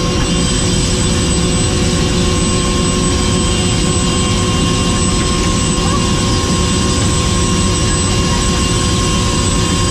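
Helicopter in flight: a loud, steady drone of turbine engine and rotors, with a few constant whining tones over it.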